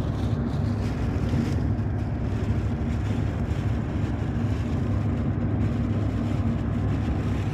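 A car driving on the highway: steady engine and road noise with a constant low drone.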